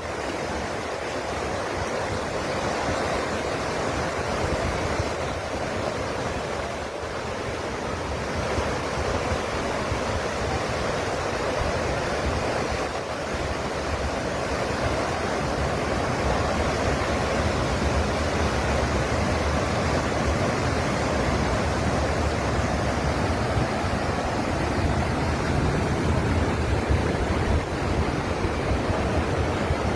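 Fast-flowing floodwater: a steady rushing noise that grows slightly louder through the second half.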